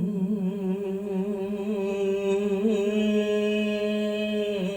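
A single voice holding one long sung note, level in pitch with a slight waver, as a sustained vowel in a cải lương song; it breaks off near the end.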